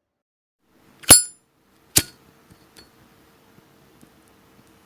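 Zippo lighter lid flipped open with its ringing metal clink about a second in, then a sharp click of the spark wheel being struck about a second later, followed by a faint steady sound.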